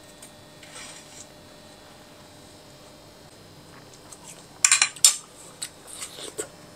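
Metal forks clinking on ceramic plates. A quick run of sharp clinks comes about four and a half seconds in, followed by a few lighter clicks.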